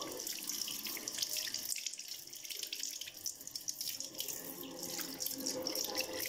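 Water running from a tap into a bathroom sink, with irregular splashing as someone washes at the basin.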